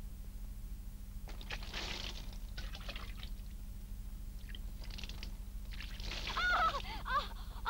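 Water scooped with a metal hamam bowl and poured, splashing in several short bursts, then a woman's short gasping cries near the end as water is poured over her head. A steady low hum runs underneath.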